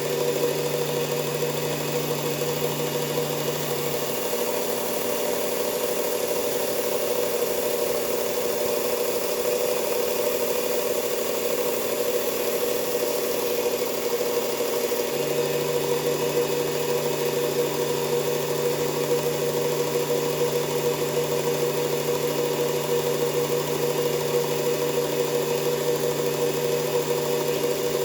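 Electric belt sander running steadily while a knife is being sharpened on it. Its hum holds even, except that one low tone drops away about four seconds in and comes back some ten seconds later.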